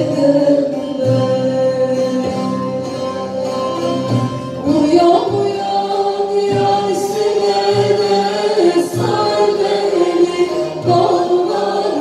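Turkish folk song (türkü) performed live: a woman singing the melody into a microphone with a mixed choir and bağlama accompaniment, heard through the hall's PA, with long held notes that change pitch every second or two.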